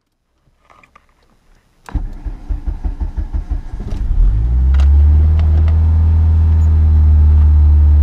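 Volkswagen Passat B3 1.8 single-point-injection engine cranked by the starter with an even pulsing for about two seconds. It catches about four seconds in and settles into a steady, loud, abnormally high idle, the fault being a frozen mono-injection unit.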